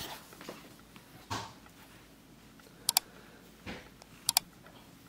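Light handling noise: a couple of soft knocks and two quick double clicks.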